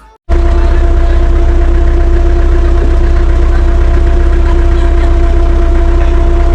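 Vehicle engine running steadily, heard from on board: a loud, even low rumble with a constant droning tone. It starts abruptly just after the beginning.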